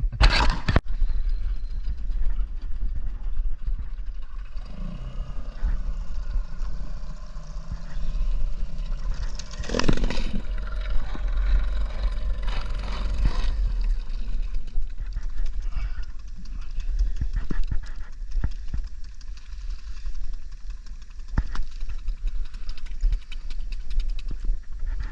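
Small fishing boat under way: heavy wind rumble on the microphone and water noise, with an engine hum heard clearly from about five seconds in for several seconds. Scattered knocks, the loudest at the very start and about ten seconds in.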